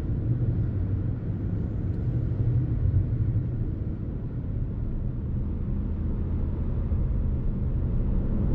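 Steady low rumble of a car being driven along the road: engine and tyre noise.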